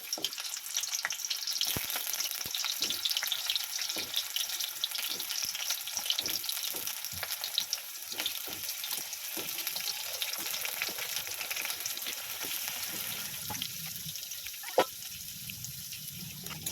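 Potato pieces frying in hot oil in a kadai, a steady sizzle with dense crackling and popping. A single sharp knock comes near the end.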